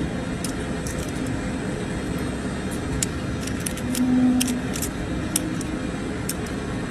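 A hoof knife scraping and clicking against small stones packed into the white line of a cow's claw, a string of sharp ticks heard most between three and six seconds in. It runs over a steady low rumble, with a short low hum about four seconds in.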